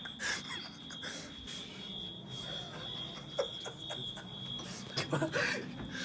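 Recorded smoke-alarm tone played through a speaker, a steady high-pitched tone that never stops. Over it come bursts of rustling and movement, loudest about five seconds in.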